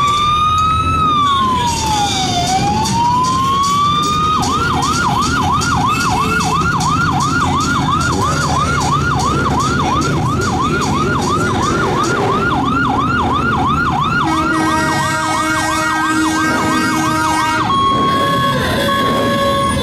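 Electronic siren: a slow wail that rises and falls over the first few seconds, then switches to a fast yelp of about three cycles a second, and near the end changes to a steady tone that steps between pitches.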